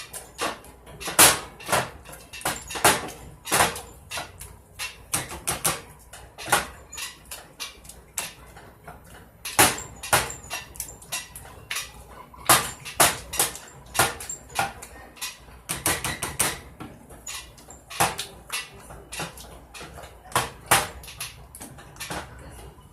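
Baked beans being mashed with a utensil: a long run of irregular sharp knocks and clacks as it strikes the cookware, about one or two a second.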